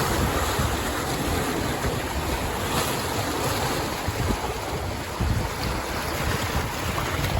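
Wind buffeting the microphone: a steady rushing noise with irregular low gusts.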